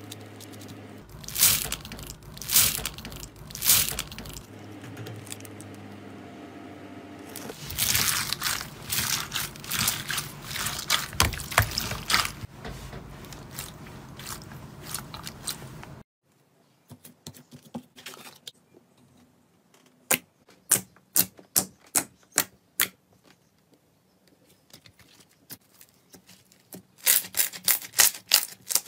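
A hand squishing and pressing foam-bead slime (floam), giving a dense run of crunches and crackles. After a sudden cut, soft peach-coloured slime is poked, giving quick groups of sharp pops and clicks about a second in, midway and near the end.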